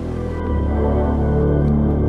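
Background music: a dark ambient track with a deep sustained bass drone and held tones above it, stepping up in level about half a second in.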